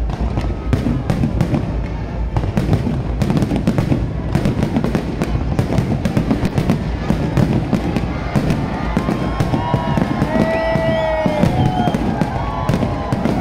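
Fireworks barrage: a dense, continuous run of bangs and crackles from many shells bursting one after another. In the last few seconds a wavering pitched sound rises above the bangs.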